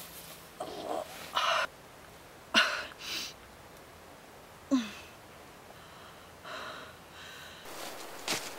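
A girl's ragged, heavy breathing: a string of sharp gasps and breaths in and out, with a short voiced whimper about five seconds in.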